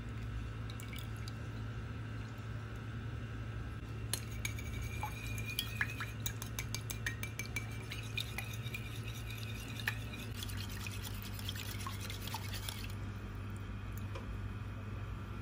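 Wire whisk beating a thin egg-and-milk mixture in a ceramic bowl: rapid clicking and clinking of the wires against the bowl, with liquid sloshing. It starts about four seconds in and stops well before the end, over a steady low hum.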